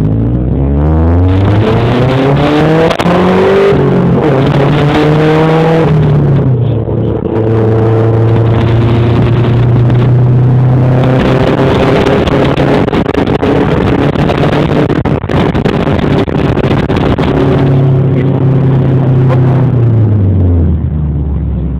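Honda Civic's B16A 1.6-litre four-cylinder engine revving up and held at high revs, dropping back, then revving up again and holding steady before falling back near the end. Its note is harsh from a large exhaust leak, a blown-out exhaust.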